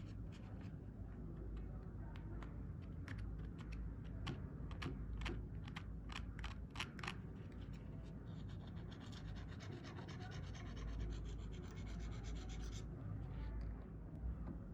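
Hand rust removal on a pair of old pliers, abrasive scratching and rubbing on metal: a string of short scrapes in the first half, then about four seconds of fast, even scrubbing.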